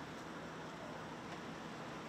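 Steady outdoor background noise: a low, even hiss with no distinct events in it.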